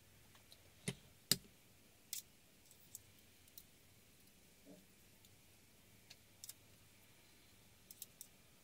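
Sparse light clicks and taps of craft supplies being set down and handled on a cutting mat, the two sharpest about a second in, with a quick run of three small clicks near the end.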